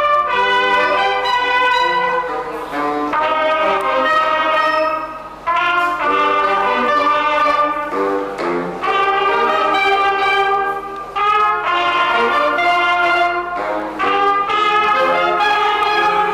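Wind band music led by brass, trumpets and trombones to the fore, playing sustained chords in phrases a few seconds long with short breaths between them.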